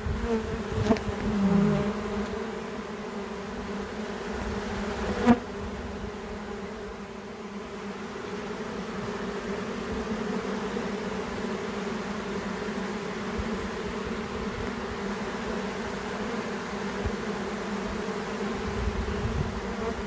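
A large mass of honeybees buzzing in a steady hum at close range: a disturbed colony streaming out of its hive box. One sharp knock sounds about five seconds in.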